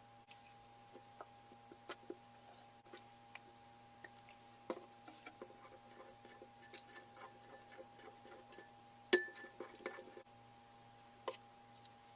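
Slime being poked and pressed by hand, giving irregular small clicks and pops, with one sharper click about nine seconds in. A faint steady electrical hum runs underneath.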